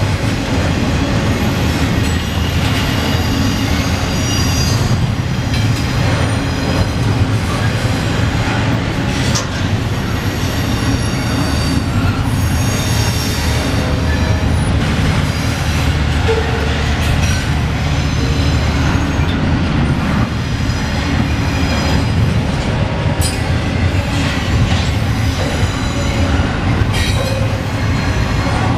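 Double-stack intermodal train's loaded well cars rolling past: a loud, steady low rumble of steel wheels on rail. High-pitched wheel squeal comes and goes, with a few sharp clicks.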